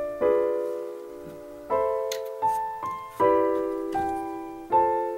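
Background piano music: sustained chords struck about every one and a half seconds, each ringing and fading before the next.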